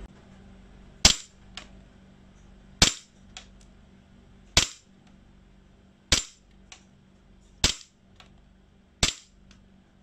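A VFC Sig Sauer M17 gas blowback airsoft pistol on green gas fires six single shots, about one every one and a half seconds. Each is a sharp crack followed by a faint click about half a second later.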